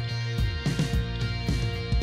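Background music with a steady drum beat, roughly two beats a second, over sustained low notes.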